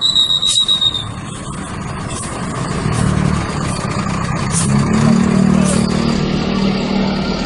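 Tour bus engine running and revving up, its drone rising and growing louder about halfway through. A high steady tone sounds for about a second at the start, and there are a few short hisses.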